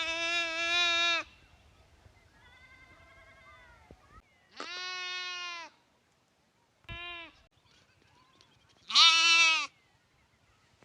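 Lambs bleating: five separate calls, the loudest near the start and about nine seconds in, a short one about seven seconds in, and a fainter, wavering one about two seconds in.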